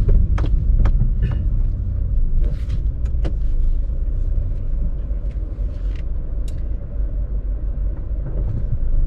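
Steady low rumble, with a few short clicks in the first few seconds.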